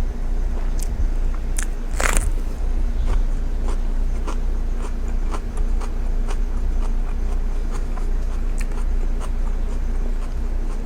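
Close-miked chewing of food: soft wet mouth clicks and smacks, with a sharper crunch about two seconds in, over a steady low hum.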